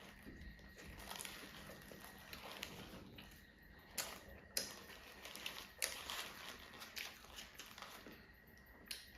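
Faint rustling and handling of takeaway food packaging, with a few sharp clicks and knocks: one about four seconds in, another soon after, one near six seconds and one near the end.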